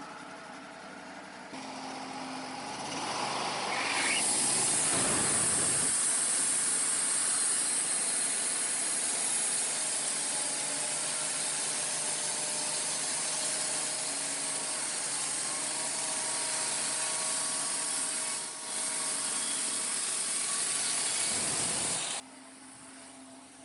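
Wood-Mizer bandsaw mill's blade sawing through a cedar log, its engine under load. The cut sounds as a loud, steady rushing from about four seconds in and stops suddenly near the end, leaving the engine idling.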